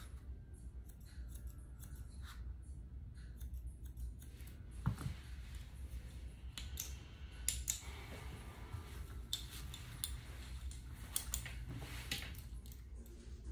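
Grooming shears snipping through a Bedlington Terrier puppy's coat in short, irregular cuts, over a steady low hum.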